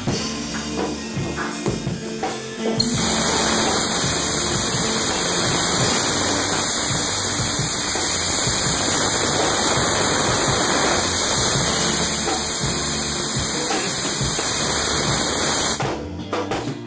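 Compressed-air blow gun hissing steadily to dry the wet-sanded clear coat. It starts about three seconds in and cuts off sharply about a second before the end, over background music with a drum beat.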